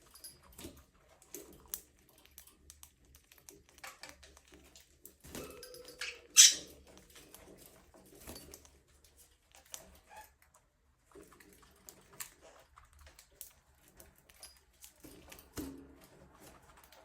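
Budgerigars chirping now and then amid light, scattered clicks, with one loud, sharp chirp about six seconds in.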